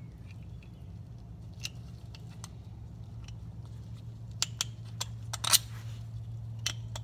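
Small metal clicks and clinks as a CV joint bolt with its serrated washer is handled and the new CV joint is worked against the wheel-side drive flange. The clicks are scattered, with a cluster of sharper ones about four and a half to five and a half seconds in, over a steady low hum.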